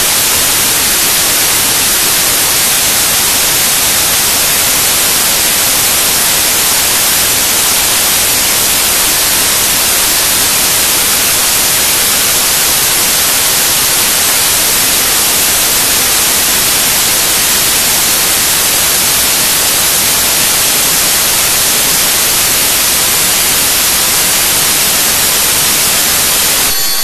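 Loud, steady digital static: the raw bytes of a video file written to Mini DV tape and played back, so the tape's audio track decodes the data as hiss.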